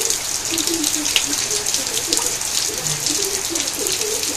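Steady rain falling on a brick-paved courtyard and leafy plants: a continuous hiss with many close drops pattering.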